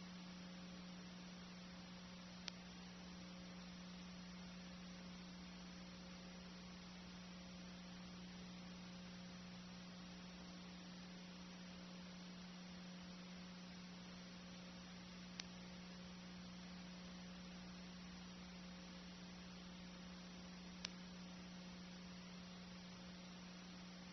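Near silence: a steady low electrical hum under faint hiss, with three brief clicks.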